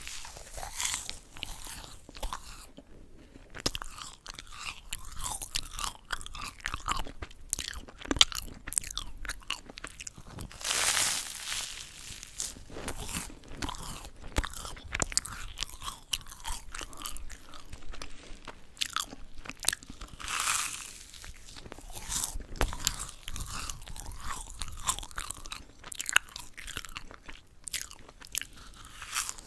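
Close-miked chewing of yugwa, Korean fried glutinous-rice cookies coated in puffed rice: a steady run of fine, crisp crackles, with louder crunches about eleven and twenty seconds in.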